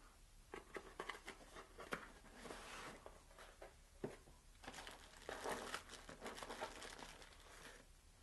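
Faint crinkling and rustling of lens packaging being handled, with scattered light clicks and taps.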